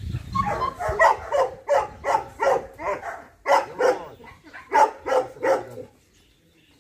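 Rottweiler barking in a rapid run of deep barks, about two to three a second, with a brief pause around three seconds in, stopping about six seconds in.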